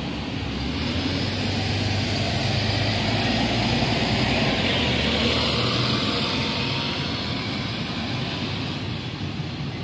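MAN A22 Euro 5 city bus pulling away and driving past, its diesel engine running with a steady low hum. It gets louder for about the first five seconds as it passes close by, then fades as it drives off.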